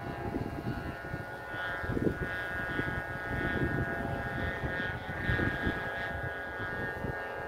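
Kite flutes humming in the wind: several steady overlapping whistling tones sounding together, with gusts of wind buffeting the microphone.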